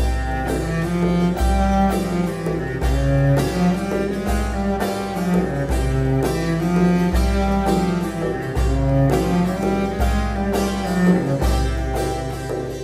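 Instrumental background music: quick higher notes over a deep bass note that starts about every second and a half.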